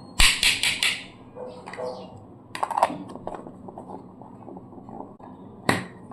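Kitchen dishes and utensils being handled: a quick run of four short scrapes in the first second, then a few single sharp clicks, one about two and a half seconds in and another near the end.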